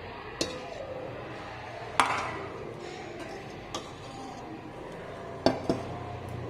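Dishes clinking during a meal: about five short, sharp knocks of a plate and utensils. The loudest, about two seconds in, rings briefly. A steady low hum runs underneath.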